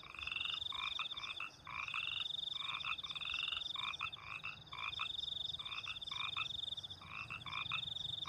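Night ambience of frogs croaking, short calls repeated in quick clusters of two or three, over a steady high-pitched trill.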